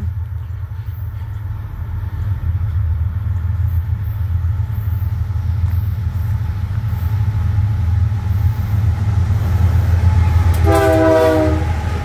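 BNSF freight train led by a GE C44-9W diesel locomotive approaching and passing close by, its low engine rumble growing louder. Near the end the locomotive sounds one short blast of its multi-chime air horn.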